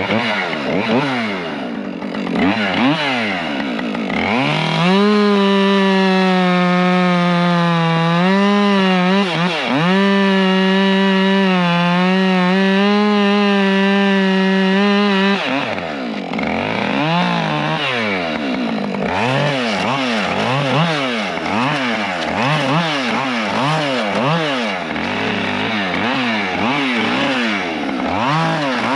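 Petrol chainsaw bucking a felled spruce trunk. The engine revs up and down in quick blips about once a second. From about five seconds in it is held at full throttle in a steady high whine through a cut for roughly ten seconds, then goes back to quick revving.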